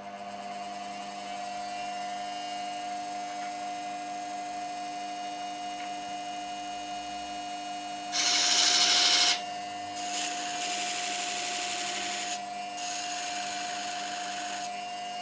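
Angle grinder running with a steady whine, cutting into steel on the treadmill motor in three grinding passes, about eight, ten and thirteen seconds in; the first pass is the loudest.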